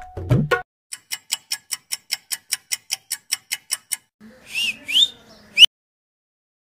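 Background music with tabla cuts off, then a clock-ticking sound effect plays, about five ticks a second for three seconds. It is followed by two rising whistle sound effects and a sharp click.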